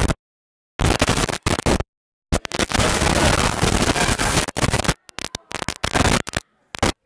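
Loud static-like hiss cutting in and out in blocks, broken by gaps of dead silence: the recording's audio is glitching and dropping out. The longest stretch of hiss comes a couple of seconds in and lasts about two and a half seconds. After that it breaks into short, choppy bits.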